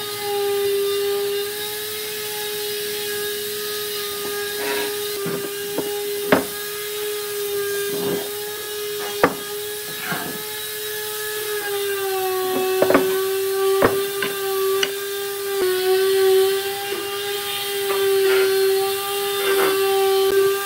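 Wooden blocks knocking sharply now and then as they are handled and set down on a workbench, over the steady hum of a running machine's motor that dips slightly in pitch about twelve seconds in.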